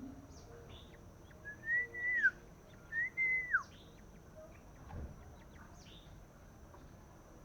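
Young male iora giving two clear whistled notes about a second apart, each rising, holding, then dropping off at the end. Faint short high chirps and a steady faint high tone sound behind them.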